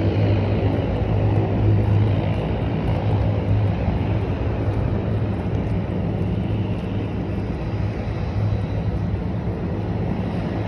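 Steady low engine rumble with a deep, even hum, easing off slightly toward the end.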